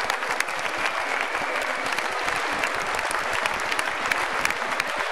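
Audience applauding in a large sports hall, with dense, steady clapping and no break.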